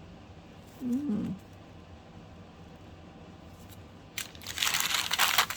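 Packaging crinkling loudly for just over a second near the end, as an item is handled out of its wrapping.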